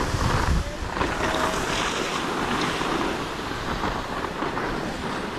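Skis sliding and scraping over packed, groomed snow, a steady rushing hiss, with wind buffeting the camera microphone in a strong low gust in the first half second.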